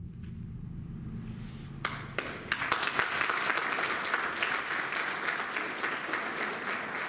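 The wind orchestra's last low note fades away, and about two seconds in the audience starts clapping, a few single claps first, then steady applause.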